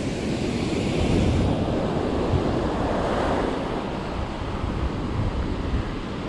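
Ocean surf breaking and washing up a sandy beach, a steady rushing noise, with wind buffeting the microphone.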